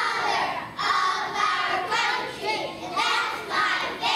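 Choir of young children singing together in unison, phrase by phrase with short breaks between the lines.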